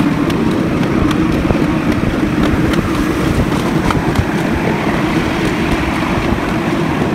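Miniature passenger train running along its track, heard from an open car: a steady rumble of wheels and running gear with a low hum, and faint scattered clicks.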